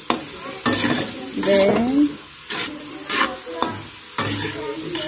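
Metal utensil scraping and stirring pork intestines around a wok in repeated strokes, with frying sizzle underneath.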